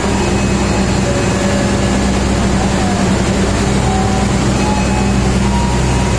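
Train at a station, its engine giving a steady low drone over a constant rumble.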